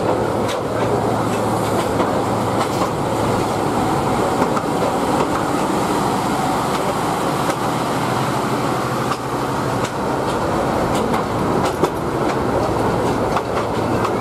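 Bangladesh Railway local train's passenger coaches rolling past close by: a steady rumble with sharp, irregular clicks of the wheels over rail joints.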